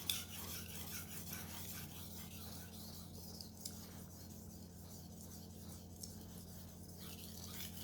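Knife blade being stroked on a 400-grit sharpening abrasive, a faint repeated rasping scrape that is clearest in the first three seconds and lighter after. A steady low hum runs underneath.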